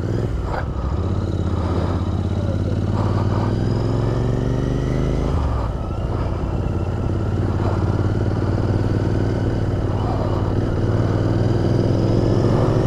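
Royal Enfield Interceptor 650's parallel-twin engine pulling away and accelerating, its pitch rising steadily, dropping at a gear change about five and a half seconds in, then rising again.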